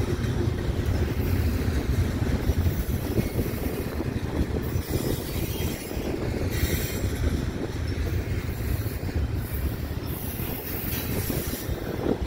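Loaded double-stack intermodal well cars rolling past, a steady rumble of steel wheels on the rails.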